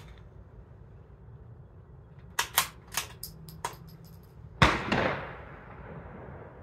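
A suppressed .22 LR bolt-action rifle (CZ 457) firing CCI Quiet subsonic rounds through a Dead Air Mask HD suppressor. First comes a quick series of metallic clicks as the bolt is cycled. About four and a half seconds in, one muted shot, the loudest sound, fades out over about a second.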